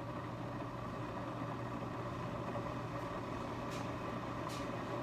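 Steady low hum with two faint clicks, about three and a half and four and a half seconds in.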